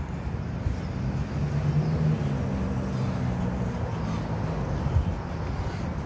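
Steady low rumble of city traffic, with a vehicle engine's hum swelling about a second in and fading out by about four seconds. A short thump about five seconds in.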